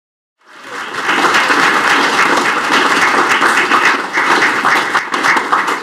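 Audience applauding, fading in about half a second in and then going on steadily.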